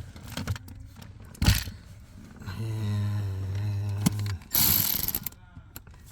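A screwdriver tightening the T20 Torx screws of a cabin filter housing into plastic: a sharp click, then a steady mechanical whir for about two seconds, then a short scraping rustle.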